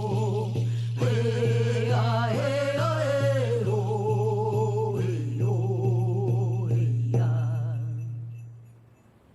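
Music with a singing voice holding wavering notes over a steady low drone, fading out near the end.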